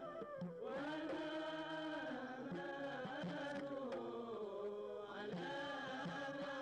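Background music: a chant-like sung melody of long held notes that glide between pitches.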